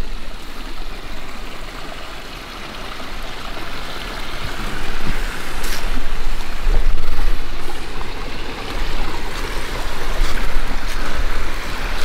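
Rushing water of a small creek cascade, a steady hiss with a low rumble underneath, growing louder about halfway through.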